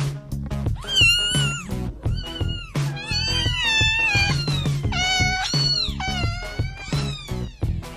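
Mother cat meowing again and again, a quick run of rising and falling calls, some high and some lower, over background music with a steady beat.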